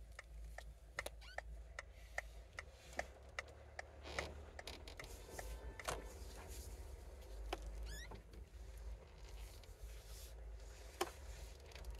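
Car's turn-signal indicator ticking, about two to three ticks a second, over low engine and road rumble inside the cabin.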